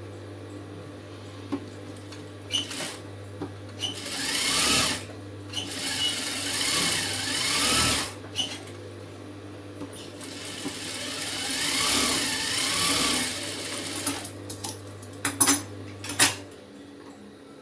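Industrial sewing machine stitching fabric in three runs, each speeding up and slowing down with a rising and falling whine, its motor humming steadily in between. A few sharp clicks near the end as the motor hum stops.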